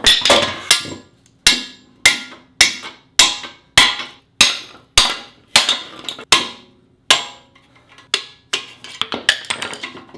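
Hammer blows of steel on steel, driving at the seized long bolt through a removed Subaru rear suspension knuckle: a steady run of sharp, ringing strikes about two a second. The blows thin out near the end and give way to lighter metallic clatter.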